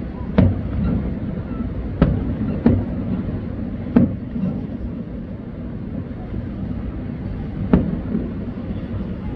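Distant aerial fireworks bursting with five sharp booms at uneven gaps, the first near the start and the last about two seconds before the end, over a steady low rumble.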